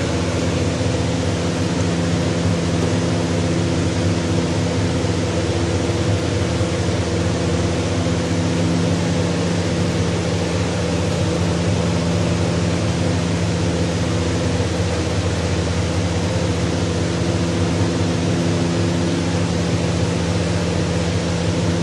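A steady mechanical hum under an even rushing noise, from a running fan or motor, with no change throughout.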